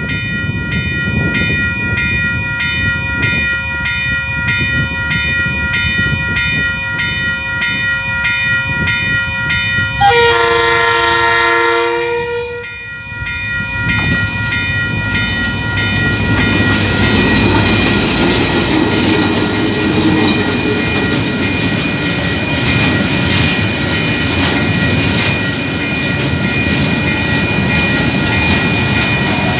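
Level-crossing warning bell ringing in a steady, regular rhythm. About ten seconds in, a KiwiRail freight train's horn sounds one chord-like blast of about two seconds. Then the train's wagons rumble and clatter over the rails through the crossing, with the bell still ringing underneath.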